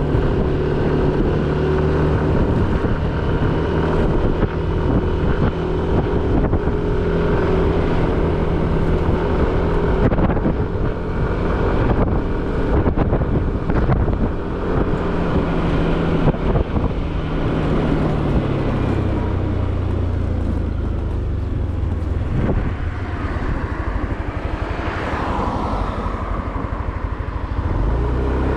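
Motorcycle engine running while riding, heard from on the bike, with wind noise over the microphone; the engine note drops lower about two-thirds of the way through.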